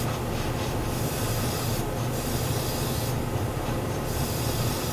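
Airbrush spraying a light mist coat of primer, a steady hiss of air and paint that breaks off twice as the trigger is eased, over a steady low hum.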